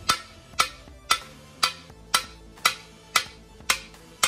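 Mallet tapping a countershaft into a cast-iron Ford T18 transmission case: even blows about two a second, nine in all, each ringing briefly.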